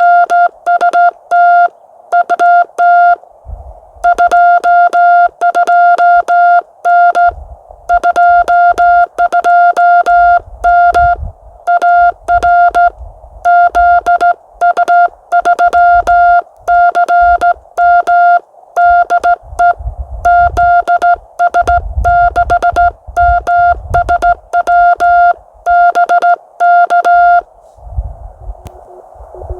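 Morse code (CW) tone from a ham radio transceiver, a single steady pitch keyed on and off in dots and dashes. Soft low knocks sound under parts of it, and the keying stops a couple of seconds before the end, leaving faint hiss.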